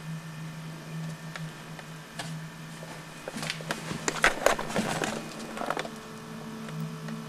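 A low steady hum under room tone, with a quick cluster of clicks and rustling about three and a half to five seconds in.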